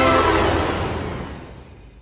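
Background music ending on a loud held chord that fades away over about a second and a half.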